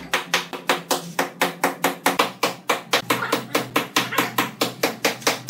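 Quick, even taps, about five a second, of a steel trowel working tile mortar onto the back of a tile.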